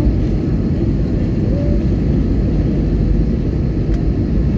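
Airliner on its approach to land: a steady low rumble of engines and airflow.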